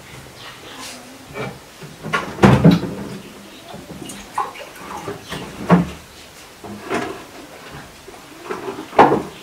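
Glass-paned wooden cabinet being opened and rummaged through, with things moved on its shelves: a series of separate knocks and clatters, the loudest a couple of seconds in and near the end.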